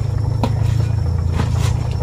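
A steady low rumble, with a couple of light clicks as pechay (bok choy) leaves are pressed down into a steel cooking pot.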